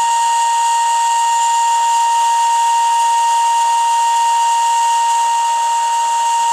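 Steady single-pitch test tone with a hiss behind it, from a CB radio's speaker: the AM modulation tone of an RF signal generator, received and demodulated by a TTI multinorm CB set. The tone is peaked to maximum recovered audio during receive alignment, with the set now tuned for optimum.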